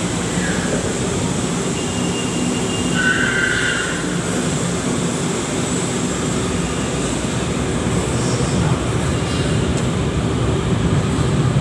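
A 4th-generation LRT-1 light rail train pulling out of a station platform: a steady rolling rumble and hum, with a brief high whine about three seconds in.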